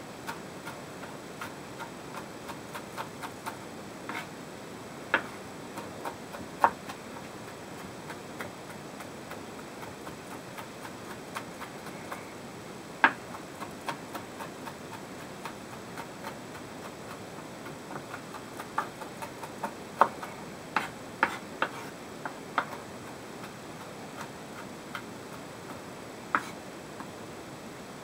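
Chef's knife tapping against a wooden cutting board while mincing garlic: irregular light taps with a few sharper, louder ones, over a steady hiss.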